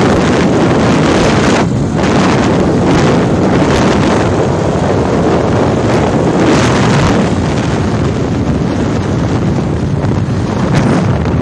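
Loud, steady wind rushing over the microphone of a phone carried on a moving motorbike, with the ride's vehicle noise underneath.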